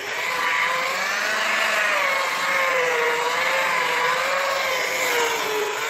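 Small hand-held electric polisher with a foam pad running, its motor whine wavering slowly up and down in pitch.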